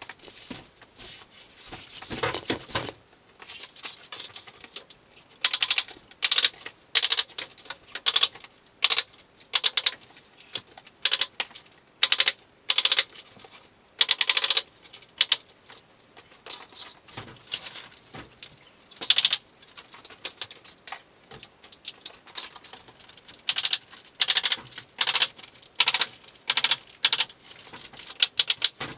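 Staple gun firing staples through polythene sheet into a timber frame: a long series of sharp snaps, one every second or so in irregular runs, with the plastic sheet rustling as it is pulled tight between shots.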